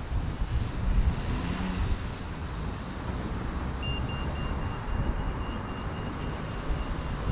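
A car driving at town speed, heard from inside the cabin: a steady low engine and road rumble.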